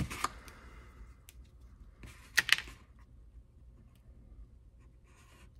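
Wire strippers snipping thin insulated hookup wire: a couple of clicks at the start and a louder pair of sharp snips about two and a half seconds in.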